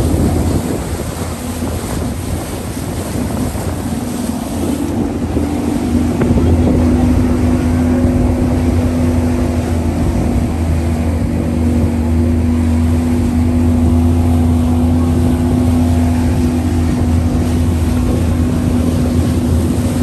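Motorboat engine running steadily under way, a constant low drone that grows a little louder about five seconds in, with wind rushing over the microphone.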